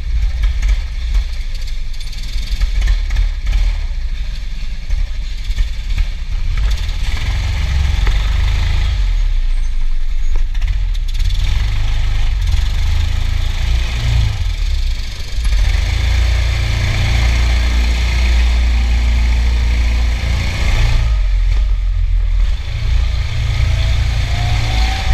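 Go-kart running with a heavy low rumble, heard from the driver's seat, as it pulls away and picks up speed; a rising whine comes in near the end.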